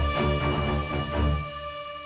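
Theme-style background music: held tones over a steady pulse, fading down over the last half second.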